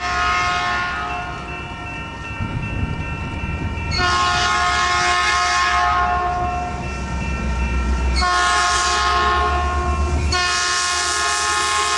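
Nathan P2 two-chime air horn on a Metrolink F59PH diesel locomotive, sounding a two-note chord in repeated blasts. The pattern is long, long, short, long, the grade-crossing signal. The train's low rumble runs underneath.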